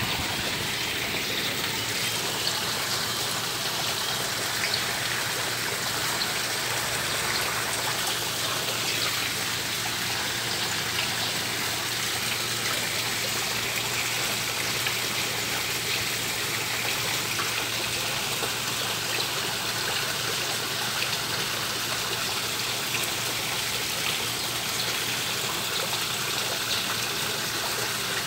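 Steady running and trickling water in a koi pond, an even splashing wash that does not change.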